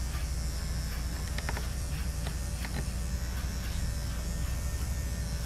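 Electric pet grooming clipper running with a steady buzz as it trims the hair on a dog's paw. A few faint clicks come in the middle.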